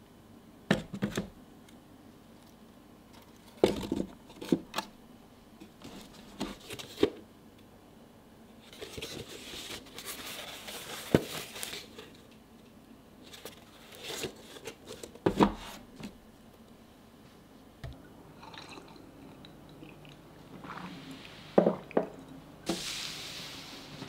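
Bamboo steamer baskets being handled and stacked: scattered light wooden knocks and clacks as the tiers are set on one another and on the table, about ten in all, with stretches of softer brushing and scraping between them.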